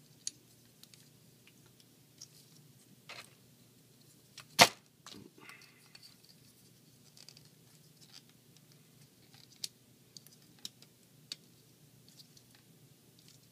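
Small clicks and ticks of a plastic transforming action figure's parts being handled and moved, with one loud sharp click or knock about four and a half seconds in.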